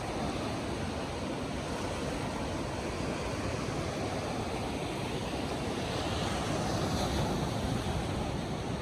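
Steady rushing noise with no tones or clicks, swelling slightly about six to seven seconds in.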